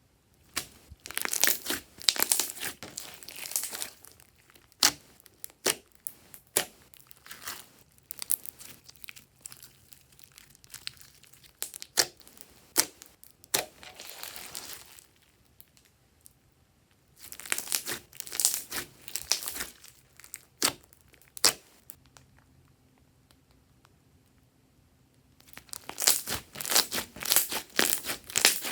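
Glossy slime being squeezed and stretched by hand, giving wet crackling with sharp clicks and pops, in several spells separated by quiet pauses.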